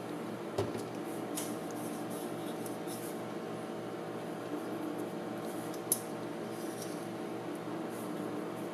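Steady droning hum made of several pitches, with faint scratchy rustles of handling over it. A sharp click comes about half a second in and another about six seconds in.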